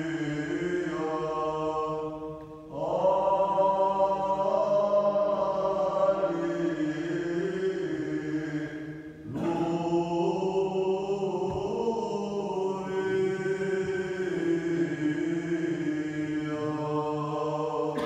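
A small group of male chanters singing Byzantine chant in Arabic: a moving melody line over a steady low held drone note. The melody breaks off briefly twice, about two and a half and nine seconds in, and starts again while the drone carries on.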